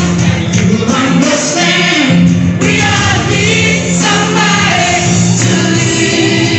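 Music with a group of voices singing together over a steady bass line.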